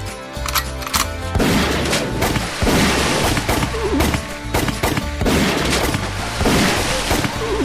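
A volley of gunshot sound effects, irregular shots coming about two a second from a little over a second in, over background music with a steady repeating bass line.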